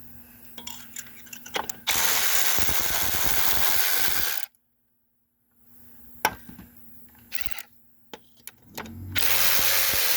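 A cordless power tool runs in two bursts of about two and a half seconds each, spinning out the bolts that hold an ATV's rear brake drum on, with small metallic clicks and clinks in between.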